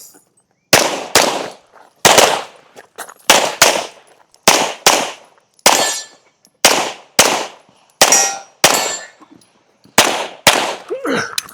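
Pistol shots fired in quick pairs (double taps) during a practical shooting stage, about seven pairs with roughly a second between them.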